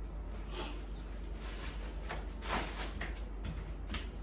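A handful of short rustles and scrapes of fabric being handled, over a low steady hum.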